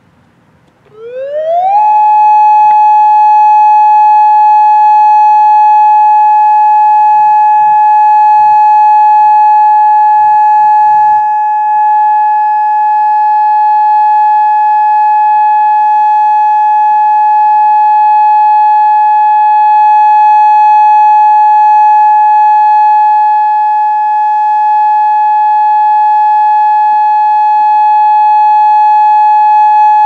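Federal Signal Modulator 4016B electronic outdoor warning siren sounding its steady Alert tone for a test. About a second in it comes on with a quick rise in pitch, then holds one loud, steady tone.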